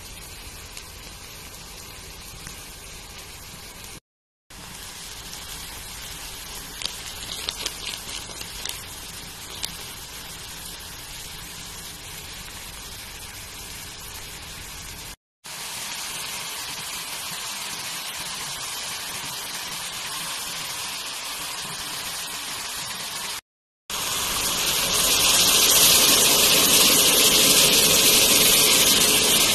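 Chopped onions, chillies and peppers sizzling in oil in a frying pan: a steady hiss broken by brief gaps at edit cuts, with a few light clicks about seven to nine seconds in. Near the end the sizzling grows louder and brighter as the macaroni cooks in the pan.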